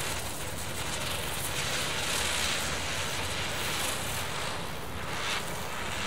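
Klasek Rotacek ground spinner firework spinning and hissing steadily as its charge burns, with a short louder surge about five seconds in.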